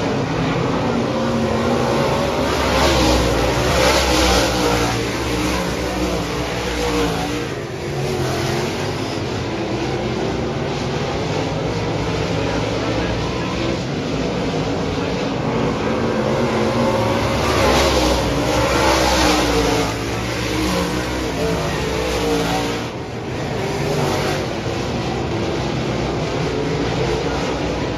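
A pack of dirt modified race cars running a heat race, engines revving hard through the turns. The field swells loudest twice as it sweeps past, about fourteen seconds apart, with engine pitch rising and falling as the cars go by.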